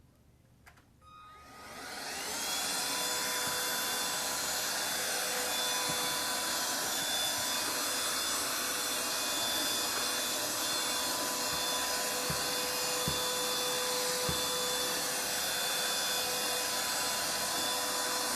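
Handheld cordless vacuum switched on: its motor spins up over about a second with a rising whine, then runs steadily with a high whine over rushing air. A few faint knocks near the middle.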